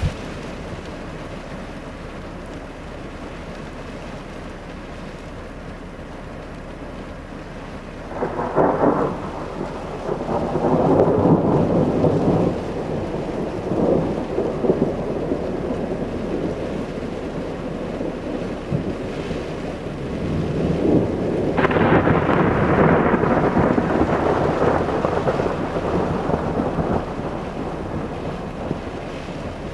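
Thundersnow: thunder during snowfall. A sudden peal about eight seconds in rolls on unevenly for several seconds, and a second, sharper crack a little past twenty seconds rumbles and fades over about five seconds, above steady background noise.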